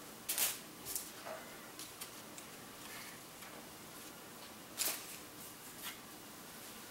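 A few brief crinkles and rustles from plastic butterfly wall decals being handled and turned over: a couple near the start, then a sharper one just before five seconds and a softer one about a second later, over quiet room tone.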